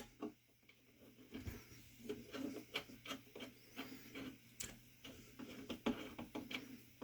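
Screwdriver turning a Scythe Mugen 5 Rev. B CPU cooler's spring-loaded mounting screw down: a run of faint, irregular clicks and ticks.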